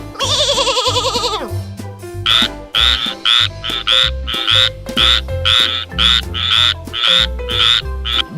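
A sheep bleating once, a long wavering call, then after a short pause a rapid series of short rasping croaks, about three a second, over background music.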